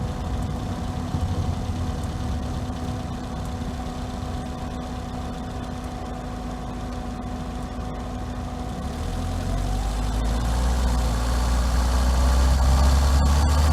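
Volvo S40 engine running at a steady, low note while driving. About two-thirds of the way through it grows louder and its pitch rises as the car accelerates.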